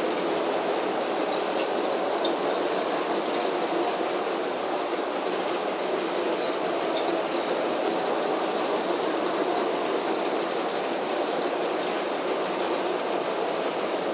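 Lego train running steadily around a round plastic track, its motor and wheels making an even whirring rattle.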